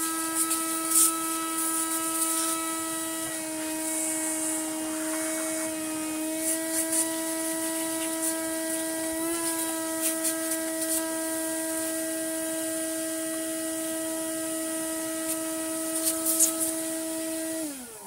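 A small electric motor running steadily at one pitch, then winding down with a falling pitch near the end. Light clicks and rattles of plastic parts being handled sound over it.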